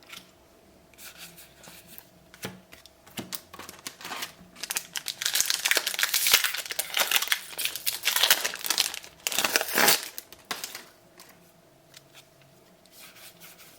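Trading card booster pack wrapper being torn open and crinkled by hand, with dense crackling from about four to ten seconds in and lighter scattered rustles before and after.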